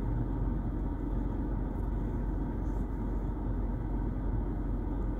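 Steady low rumble inside the cabin of a car idling at a red light.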